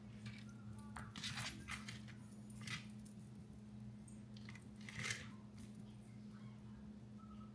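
Faint kitchen handling noises while chicken is being seasoned: a few short rustles and taps, the clearest about a second in, near three seconds and about five seconds in, over a steady low hum.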